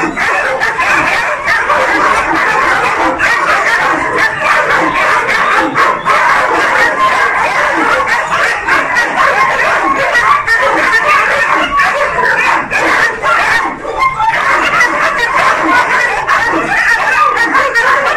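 Many kennelled dogs barking and yapping at once, a dense overlapping chorus that keeps up without a break.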